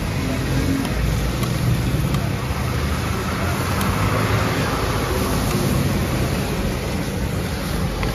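Roadside traffic noise: a steady low rumble with a hiss over it, broken by a few sharp clicks.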